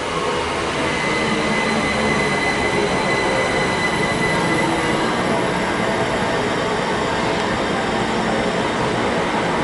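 Class 387 Electrostar electric multiple unit pulling into the platform and slowing to a stop. Its wheels rumble steadily, with a steady high-pitched squeal from the wheels and brakes, strongest in the first half.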